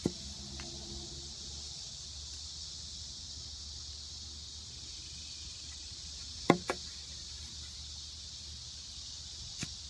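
Steady high drone of summer insects, with a few sharp knocks; the loudest is a quick pair about two-thirds of the way through.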